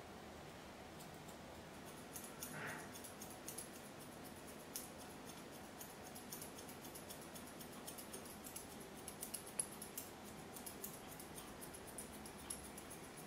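Grooming scissors snipping through a Pomeranian's fluffy coat: faint, crisp snips at an irregular pace.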